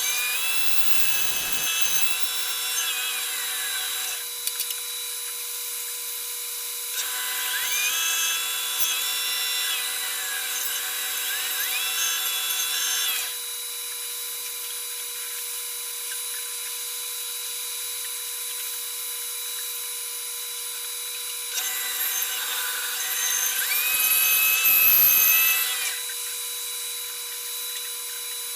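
Bandsaw running steadily, with three stretches of cutting through a sycamore block. During each cut the saw's whine shifts and bends in pitch as the blade takes the load.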